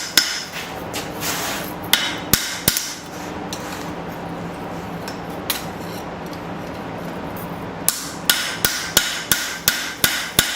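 Hand hammer planishing a steel knife blade on the anvil face at black heat, ringing metal-on-metal blows. A few strikes come early, then a pause of several seconds, then a quick run of light taps at about four or five a second near the end.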